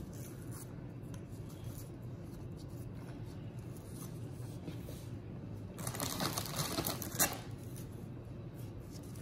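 Gloved hands setting vanilla wafer cookies into a glass baking dish, with soft handling sounds over a low steady hum; a brief spell of rustling and light clicks comes about six to seven seconds in.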